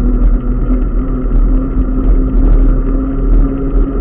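Loud wind and road rumble on a bicycle-mounted camera's microphone while riding along a wet paved path, with a steady low hum running under it.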